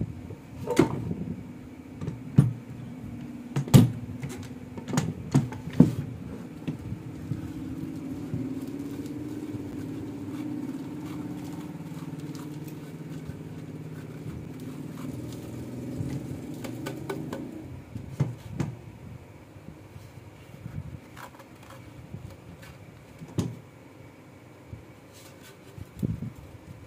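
Handling noise from a metal woodworking jig and a wooden beam: scattered knocks and clunks in the first few seconds and again later on. A low steady hum runs for about ten seconds in the middle.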